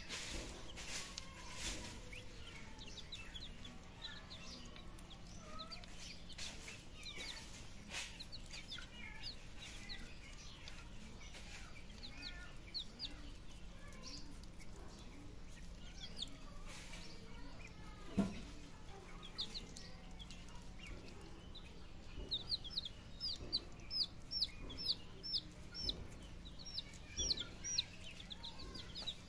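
Baby chicks and ducklings peeping, a scatter of short high peeps that becomes a dense, louder run near the end. A single sharp thump about two-thirds of the way through.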